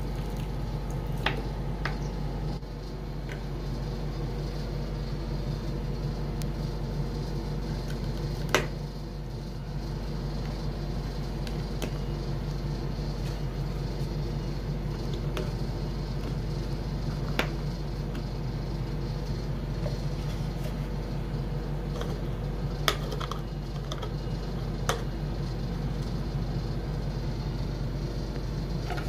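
Water trickling from a plastic bottle onto the soil of a potted cutting, stopping about two and a half seconds in. Then a few sharp plastic clicks and taps, spread out, as cut plastic bottles are handled and set over the pots, over a steady low hum.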